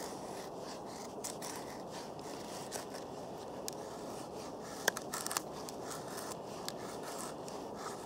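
A Scandi-ground knife blade shaving thin curls off a wooden stick while a feather stick is carved: a run of short scraping strokes with small clicks.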